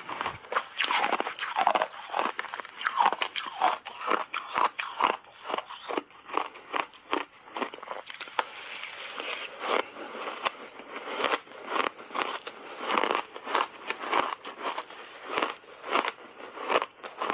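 Mouthfuls of crunchy blended shaved ice being bitten and chewed, a dense run of irregular crunches.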